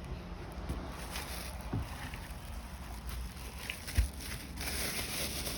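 Low steady rumble with two soft knocks, about two and four seconds in, as wheel and axle parts of a kids' ride-on car are handled.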